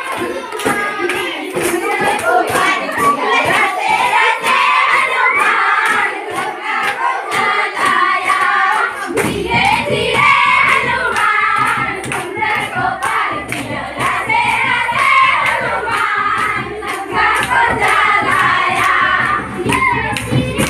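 A group of girls singing together and clapping their hands to a steady beat. A low rumble joins about halfway through.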